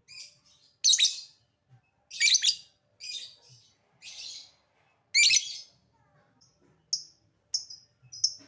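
Lovebird calling: loud, shrill, rasping calls about once a second, then shorter, quicker chirps about two a second near the end.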